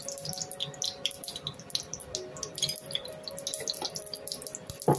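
Cooking oil crackling and spitting in a hot stainless-steel pan, a dense scatter of small sharp pops throughout. A single loud knock near the end.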